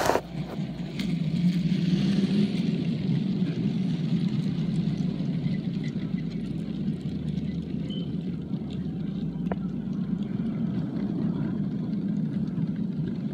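Long Lego train on 9V track rolling steadily past close by: a continuous rumble of its wagons' wheels running on the rails, with a few faint clicks.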